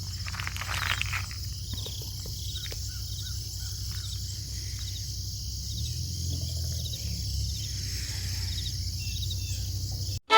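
Insects, crickets among them, chirring steadily in a high-pitched chorus, over a low steady rumble, with a few faint clicks in the first couple of seconds.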